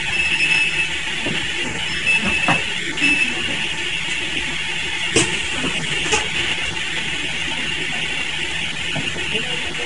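Steady running noise of PCB assembly machinery, with three short high-pitched tones in the first few seconds and two sharp clicks about five and six seconds in.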